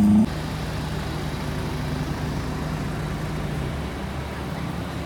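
Off-road 4x4 engine running steadily at low revs. A louder, higher engine note cuts off abruptly just after the start, leaving the even, low drone.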